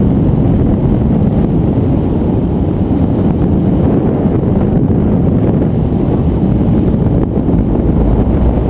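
Wind noise on the microphone of a paraglider's harness-mounted camera in flight: a steady, loud, low rumble of airflow.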